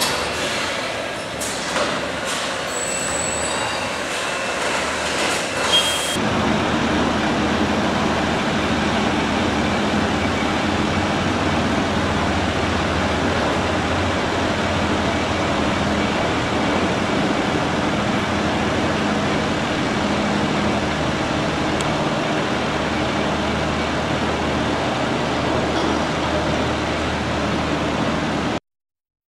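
Mechanical noise: clattering with sharp clicks and thin high whines, changing about six seconds in to a steady, dense running noise with a low hum that cuts off abruptly near the end.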